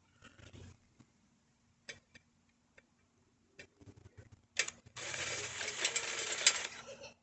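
A few handling clicks and knocks, then about five seconds in a power drill runs for about two seconds, boring a mounting hole through the bike's metal, and stops.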